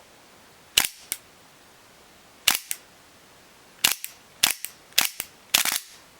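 Tanaka Works airsoft Luger P08 gas pistol dry-firing with no BBs loaded: six sharp pops at uneven intervals, each followed by a lighter clack as the toggle pops up and snaps back down.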